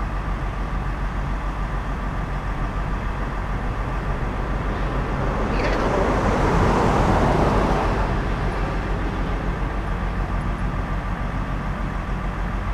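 A motor vehicle passing by, its tyre and engine noise swelling and fading over about three seconds, over a steady low mechanical hum.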